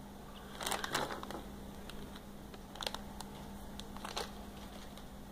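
Plastic blind-bag packet crinkling as it is handled and opened, loudest about a second in, with shorter crinkles near three and four seconds in.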